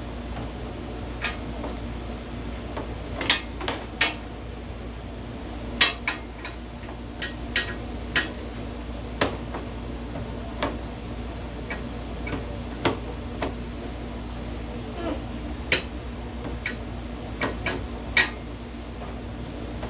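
Irregular sharp metal clinks and taps of tools and engine parts being handled while a camshaft and cam sprocket are fitted into an ATV's cylinder head, over a steady low hum.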